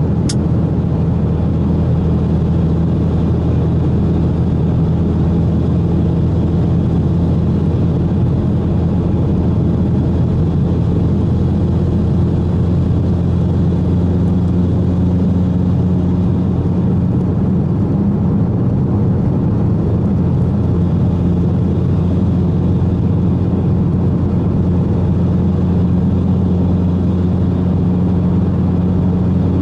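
Cabin sound of a Mitsubishi Lancer Evolution X MR on the move: its turbocharged 2.0-litre four-cylinder, fitted with an aftermarket exhaust, drones steadily over tyre and road noise at a fairly constant speed.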